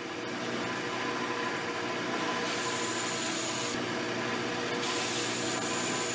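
Bench belt sander running steadily, with a wooden guitar back brace pressed against the belt twice, about two and a half seconds in and again near five seconds, each time adding a sanding hiss. The brace's ends are being taken down to give a head start on the back's 20-foot radius.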